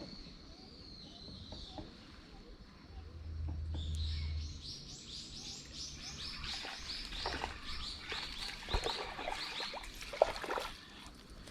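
A bird calling: a quick run of high, repeated notes, each falling in pitch, starting about four seconds in and lasting about seven seconds.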